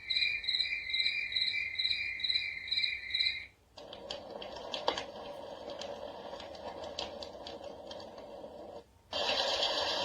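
A wake-up light alarm clock's speaker playing its built-in sounds one after another: a recorded cricket chirping about three times a second, then a crackly noise with scattered clicks, then steady white noise starting near the end. Each change comes after a brief break.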